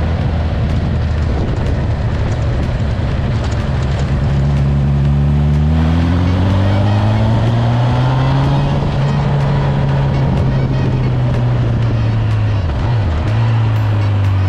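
Honda CB1000R's inline-four engine through a G&G aftermarket exhaust with the baffle fitted, running under load. Its pitch rises steadily as the bike accelerates, then holds level, with a brief dip in revs near the end.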